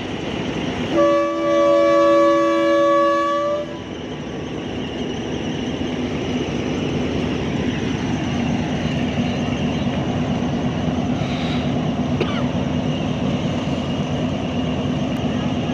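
A diesel locomotive's horn blows a chord of several tones for about three seconds. Then the locomotive's diesel engine keeps running with a steady rumble and low hum.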